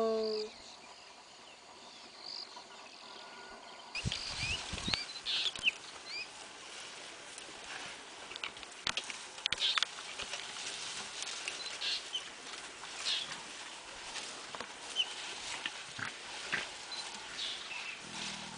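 The end of a spotted hyena's falling call dies away at the start. After a short quiet spell, small birds chirp and twitter in the bush over scattered snaps and rustles from elephants feeding in dry grass and scrub close by.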